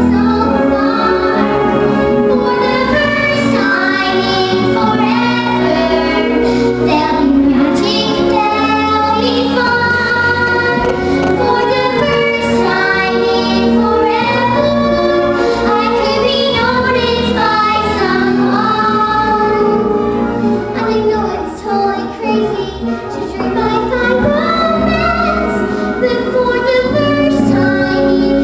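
Two young girls singing a show-tune duet over instrumental accompaniment, with one short softer passage about three quarters of the way through.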